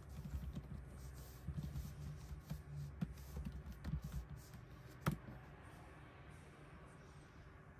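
Typing on a Logitech K380 Bluetooth keyboard with scissor-switch keys: soft, irregular key clicks for about four and a half seconds, ending with one sharper key press about five seconds in.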